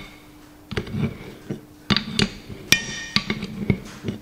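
Steel adjustable spanner clinking and knocking against a nut on a tractor front hub assembly: a string of sharp metal clinks at uneven intervals, some ringing briefly, the loudest about two and a half seconds in.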